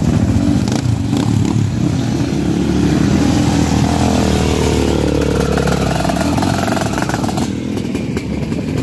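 Sidecarcross outfits' motorcycle engines running close by as the outfits ride slowly past, one engine revving up and back down about halfway through.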